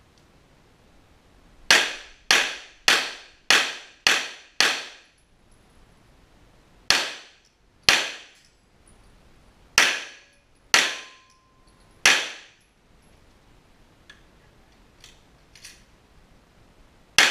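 Pistol shots echoing in an indoor range: a quick string of six about half a second apart, then five more spaced singly and in pairs, and another shot right at the end. A few faint clicks come between the last strings.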